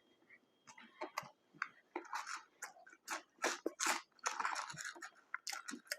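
A person chewing McDonald's food with the mouth, in a run of short, irregular crunchy bites and chews.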